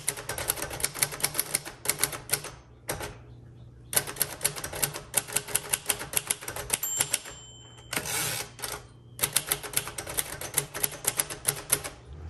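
1958 Royal Aristocrat manual typewriter being typed on, with rapid key strikes in runs and short pauses. About seven to eight seconds in, a ringing tone and a short zipping sweep break the typing, the margin bell and the carriage being returned, before the keys start again.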